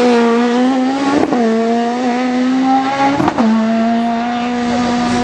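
Small racing car's engine revving hard under acceleration, with two upshifts about two seconds apart where the note drops and then climbs again.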